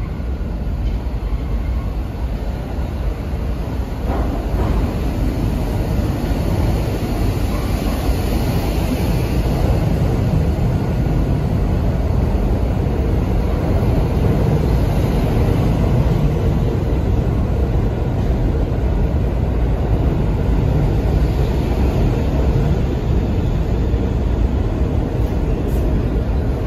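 R46 subway train pulling into the station alongside the platform: a loud, steady rumble of steel wheels on rail that grows louder about four seconds in.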